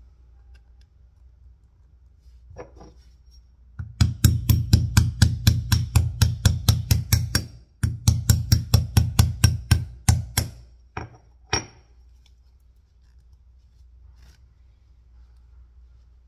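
A small iron weight plate hammering on the end of a screwdriver whose tip is set into a plastic clothing security tag, to break the tag open. A fast run of sharp knocks, about four a second, with a short break midway, then two single knocks.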